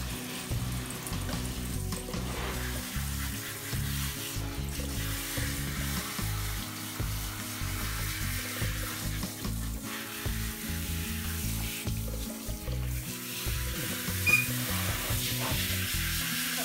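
Hand-held shower head spraying water onto a small dog in a plastic tub: a steady hiss of running water. Background music with held low notes plays along with it.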